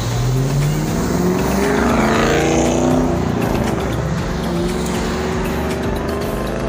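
Cars driving around a roundabout and accelerating past, their engine notes rising in pitch. The loudest pass comes about two to three seconds in, and a second car speeds up about four seconds in.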